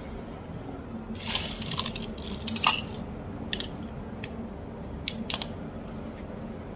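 Light clattering of small hard objects, then a few single sharp clicks, over a steady low hum.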